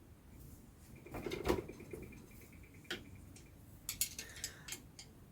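Metal tools and small engine parts clinking and tapping as the engine is taken apart: a scrape and clink about a second and a half in, a sharp tap near three seconds, and a quick run of clinks around four seconds.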